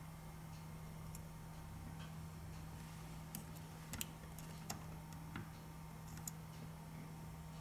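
Faint, scattered light clicks and taps, a handful spread over a few seconds, over a steady low electrical hum.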